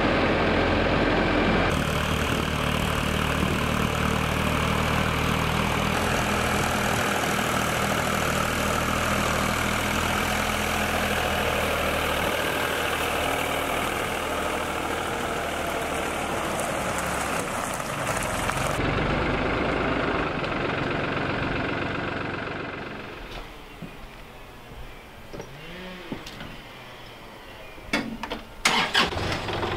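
Truck engine and road noise, steady, while driving with a trailer load of logs in tow. About 23 seconds in it drops to a much quieter level, with a few sharp clicks near the end.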